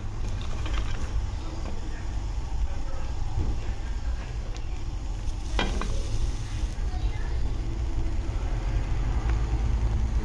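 Raw peanuts being stirred with a wooden spatula in a non-stick pan on high heat, the nuts rattling and scraping with a light sizzle as the water on them dries off. A sharper scrape comes about halfway through, over a steady low rumble.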